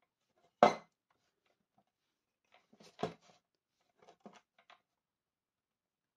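Hard plastic clatter of a paper trimmer being handled on a cutting mat: one sharp knock about half a second in, a smaller knock and rattle near three seconds, then a few light clicks.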